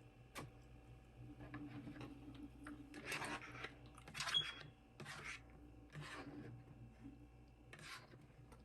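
A person eating close to the microphone: about five short scratchy bursts of chewing and food handling, with a single click near the start.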